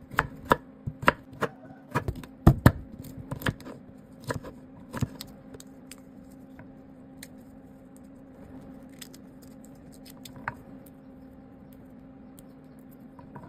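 Kitchen knife chopping a chayote on a wooden cutting board: a quick run of sharp knocks for about five seconds, then only a few scattered faint clicks, over a steady low hum.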